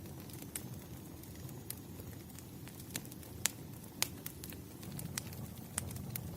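Wood fire burning: a steady low rumble with irregular sharp crackles and pops, two louder pops about three and a half and four seconds in.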